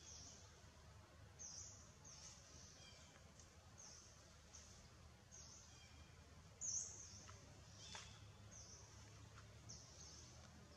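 Faint high chirps of small birds: short falling notes repeated irregularly about once or twice a second, one a little louder about two-thirds of the way through, over low, steady outdoor background noise.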